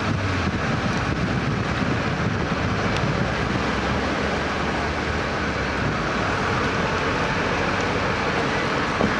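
Steady rushing of water welling up from a water main ruptured during pile driving, with a low engine hum underneath and a single knock near the end.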